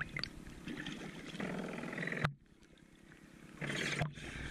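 Water sloshing and bubbling against a boat's hull, heard through a microphone at the waterline. The sound cuts off suddenly a little past two seconds in, then builds back to a rushing surge near the end.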